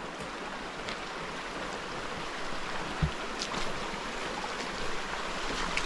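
Steady rush of flowing stream water, with a single soft thump about three seconds in.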